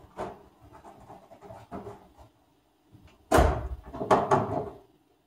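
Rustling and knocking from someone moving about in a car's driver's seat. There is a loud thump a little over three seconds in and a few more close together a second later. The engine is not yet running.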